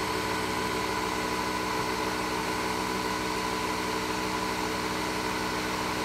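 Nespresso Vertuo coffee machine brewing: its motor spinning the capsule by centrifugal extraction, with the pump, gives a steady mechanical hum that holds at one pitch with a fast even pulse underneath.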